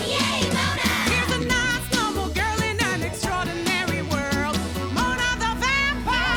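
Upbeat cartoon theme song: a sung melody over bass and drums.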